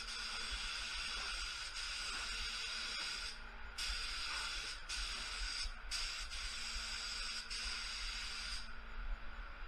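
Gravity-feed air spray gun hissing steadily as it sprays clear coat onto a car door. The hiss cuts out briefly twice as the trigger is let off, then stops near the end.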